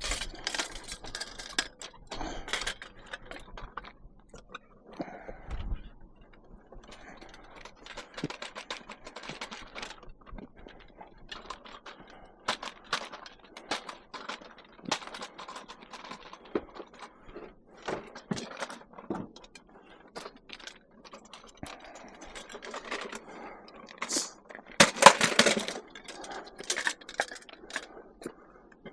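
Scrap items being handled and stacked onto a load: irregular knocks, clanks and scrapes of metal and plastic, with the loudest clatter about twenty-five seconds in.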